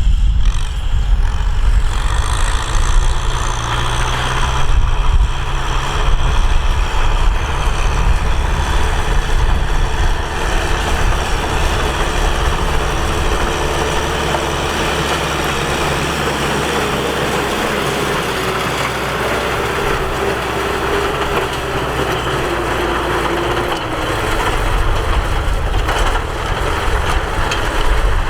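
Tractor engine running steadily with a low rumble, as when pulling a plough. In the middle a faint whine slowly drops in pitch.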